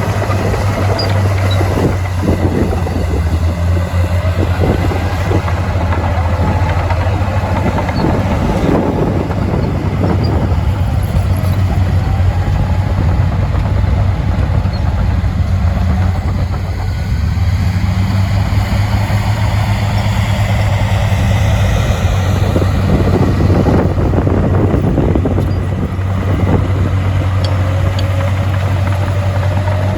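Heavy diesel engine of earthmoving equipment running under varying load, its pitch rising and falling several times over a steady low drone, with a few knocks.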